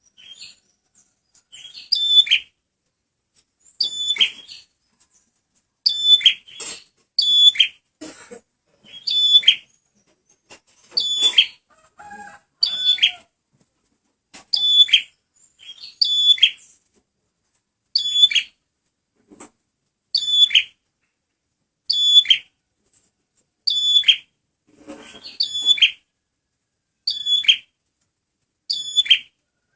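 Male prenjak merah (a prinia) calling, repeating one short, loud, high chirping phrase about every two seconds, each ending in a quick downward slide.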